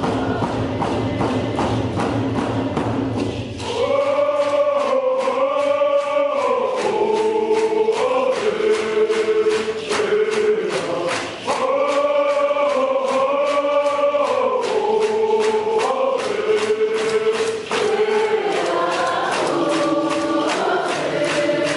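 A group of singers chanting an Indigenous Northwest Coast song over a steady beat of hand drums. Drums alone open it, the voices come in about four seconds in, and the sung phrase repeats.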